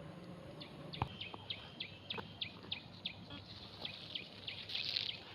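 A bird calling outdoors with a rapid, regular series of short high chirps, about three or four a second. A single sharp click comes about a second in, and a brief rustle near the end.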